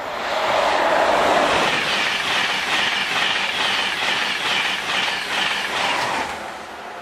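An LNER InterCity 225 electric express, a Class 91 locomotive with Mk4 coaches, passing at speed: a rushing noise of wheels on rail, loudest about a second in as the front goes by. A quick, regular beat of wheelsets runs under it as the coaches pass, and it falls away about six seconds in as the rear clears.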